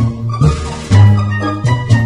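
Background music with a moving bass line and a steady beat.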